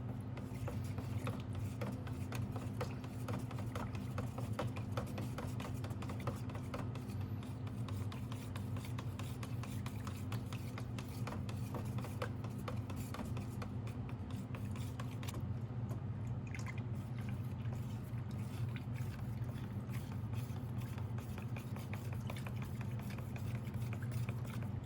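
Two-part clear coat being stirred by hand in a paint cup: many small, irregular scraping clicks of the mixing against the cup, over a steady low hum.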